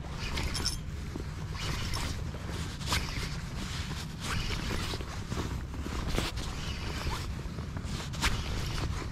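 Spinning reel being cranked, retrieving line, with wind rumbling on the microphone.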